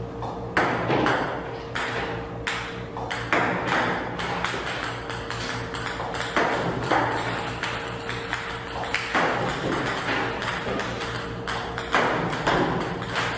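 Ping-pong balls clicking sharply against the table and net at an irregular pace, over a steady hum.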